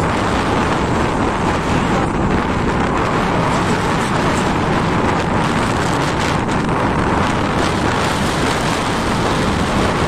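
Steady wind rushing over the microphone of a motorbike riding at highway speed, with the bike's running and road noise beneath it.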